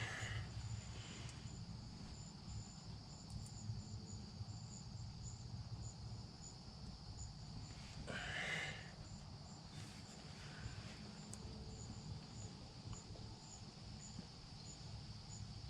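Faint insects chirping: a steady high buzz with short, high chirps repeating about every half-second over a low outdoor rumble, and one brief noise about halfway through.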